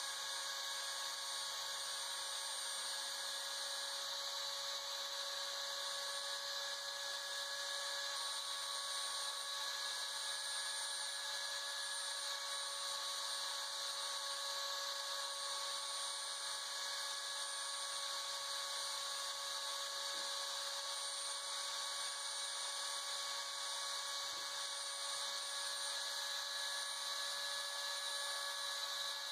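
Homemade CNC router's spindle running with a steady high whine and hiss while its end mill cuts a white plastic sheet.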